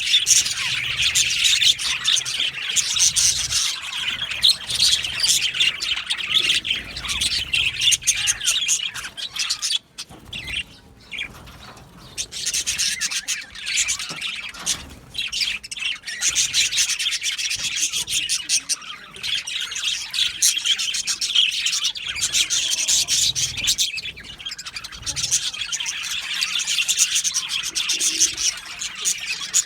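A flock of budgerigars chirping and chattering continuously in dense, overlapping twitters, with a brief quieter lull about ten seconds in.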